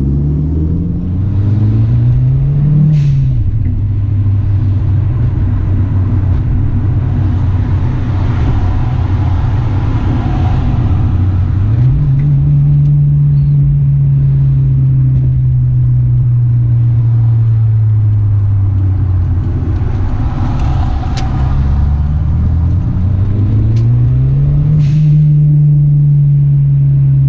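Toyota Celica GT-Four ST165's turbocharged 3S-GTE inline-four heard from inside the cabin while driving. The revs rise and drop with a gear change about three seconds in, hold steady, jump up about twelve seconds in, then fall away slowly before climbing again near the end.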